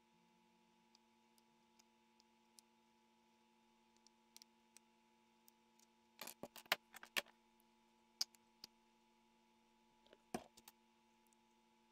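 Quiet handling of a thin cut plastic bottle piece: scattered light clicks and crackles of the plastic, with a quick run of clicks about six seconds in. A scissor snip through the plastic comes a little after ten seconds.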